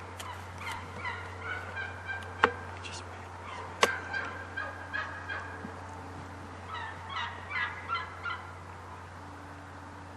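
Merriam's wild turkeys gobbling in several rattling runs of notes, with two sharp clicks about two and a half and four seconds in.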